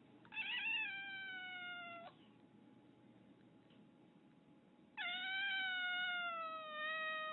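Domestic cat giving two long, drawn-out meows: the first about half a second in, wavering at its start, and a longer second one that slowly falls in pitch.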